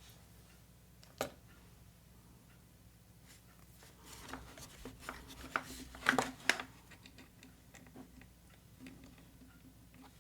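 Small clicks and taps of tiny miniature-kit pieces being handled and pressed into place on a tabletop. There is a single sharp click about a second in, then a busier run of light taps and rustles around the middle, loudest a little past halfway.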